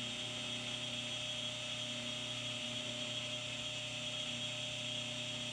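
Immersion stick blender running steadily with an even hum while mixing soap batter in a crock pot, bringing it from light trace toward medium trace.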